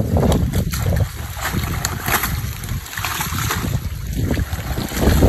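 Wet water hyacinth and weeds pulled and shuffled by hand in shallow water, rustling and splashing irregularly, over a low rumble of wind on the microphone.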